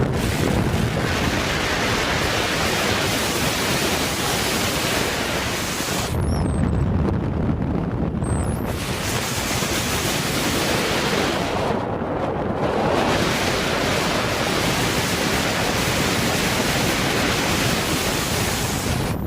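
Strong storm wind rushing and buffeting the microphone, with heavier low gusts about six seconds in and again around twelve seconds.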